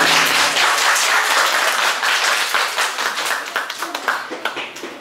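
Audience applauding, loud at first and slowly dying away.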